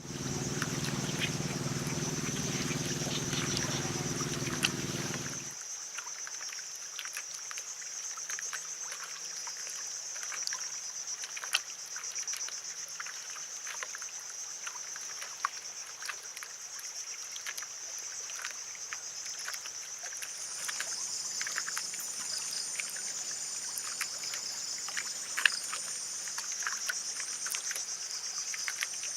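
Steady high chirring of insects over small splashes and trickles of water lapping at a boat. A low mechanical hum runs under it for the first five seconds or so and then stops.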